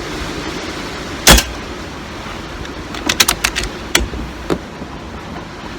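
One sharp air rifle shot about a second in, followed a couple of seconds later by a handful of lighter mechanical clicks, over steady wind noise on the microphone.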